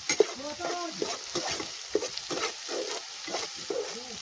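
Sliced onions and garlic sizzling in hot oil in a metal karahi. A perforated metal spatula stirs them, scraping and clicking irregularly against the pan.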